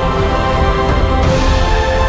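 Background music with held chords and a strong, steady bass.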